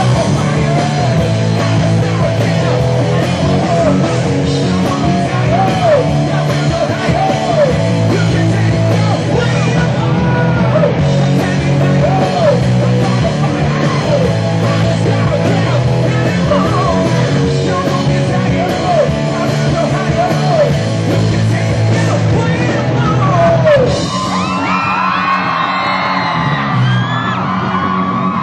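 Live rock band playing loudly, a bass line under a male singer belting into a microphone. About four seconds before the end the band's sound thins out and higher voices come up over it.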